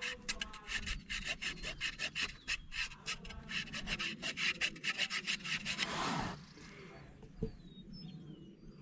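A hand rubbing quickly back and forth over a grimy metal serial-number plate on a Minneapolis-Moline UB tractor, several strokes a second, to clear the dirt off the number. The rubbing stops about six seconds in, and faint bird chirps follow.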